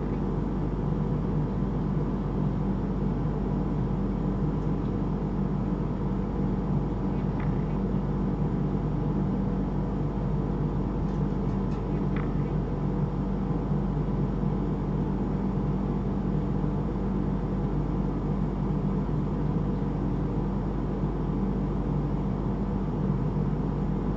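Steady low droning hum, with a couple of faint, very short high sounds about 7 and 12 seconds in.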